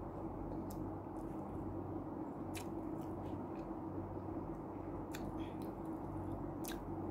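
A person eating with her fingers and chewing, with wet mouth sounds and several short sharp clicks, over a steady low hum.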